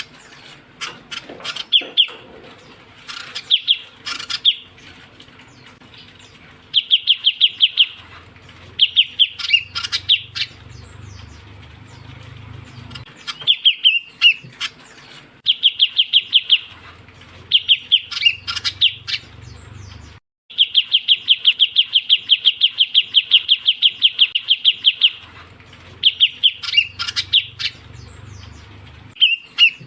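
Ciu kunyit bird calls played as a lure recording: runs of rapid high trilled notes lasting a second or two, with short chirps between them. The longest trill, about four seconds, comes just past the middle.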